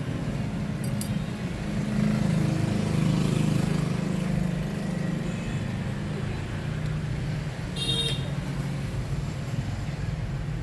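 Steady low rumble of passing road traffic, swelling about two seconds in, with a short click and brief high tone about eight seconds in.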